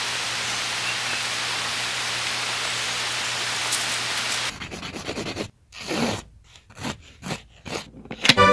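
Steady hiss with a faint low hum for the first four and a half seconds, cutting off suddenly. Then come handling sounds from fingers working an old metal latch on a wooden box: a few scrapes and knocks, and a sharp click near the end as the latch snaps.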